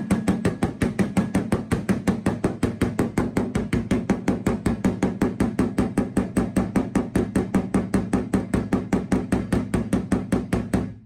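Hammer rapidly tapping a torch-heated high spot on the steel door skin of a 1969 Chevrolet Corvair, about five even blows a second, the sheet metal ringing with a steady low tone under the strikes. It is hot shrinking: the high spot is worked down without a dolly behind the panel before being quenched with water. The hammering stops suddenly at the end.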